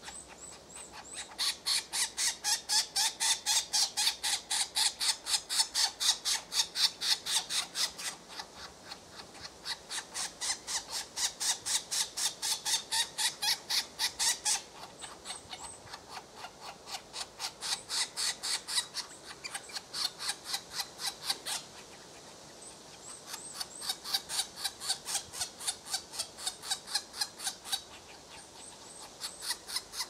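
European green woodpecker chick begging at the nest hole: a fast, harsh, rhythmic series of calls, several a second, in long bouts that swell and fade while it is fed.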